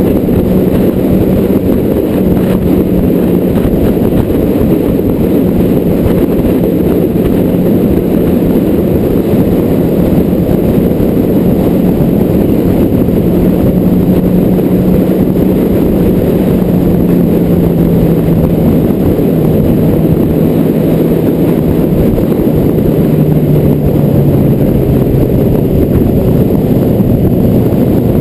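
Car driving at road speed: a steady engine drone under heavy road and wind rumble. The engine note falls gradually over the second half.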